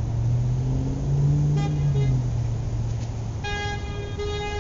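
Car sound effects: a low engine hum that swells a little about a second in and then fades, two short horn beeps in the middle, and a long horn toot starting near the end.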